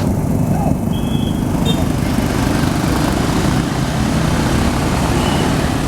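A bus's diesel engine running close by, a loud steady rumble.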